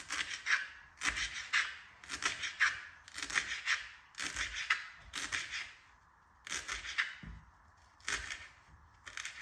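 Knife finely chopping fresh coriander on a cutting board, in short runs of quick strokes about once a second.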